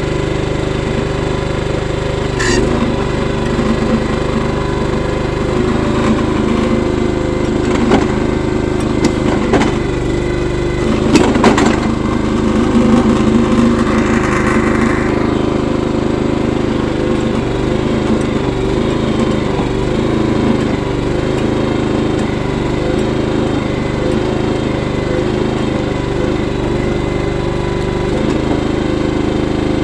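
Small petrol engine of a walk-behind trencher running steadily while it digs, with a few sharp clanks about two and a half, eight, nine and a half and eleven seconds in, and a louder stretch around the eleventh to fourteenth second.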